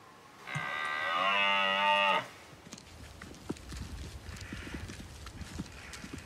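A red deer stag bellowing once, a rutting roar held for under two seconds at a steady pitch. After it come faint, scattered thuds of red deer hooves trotting on turf.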